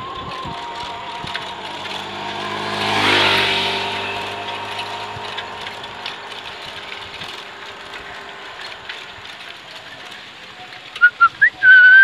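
Riding noise of a bicycle on an asphalt road, with a motor vehicle passing about three seconds in, its engine swelling and fading away. Near the end come a few short high beeps and then a longer one.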